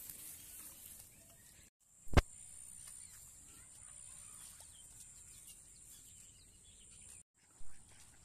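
Faint outdoor ambience with a steady high-pitched whine. It is broken by a sudden dropout and a sharp click about two seconds in, and by another dropout and a softer bump near the end.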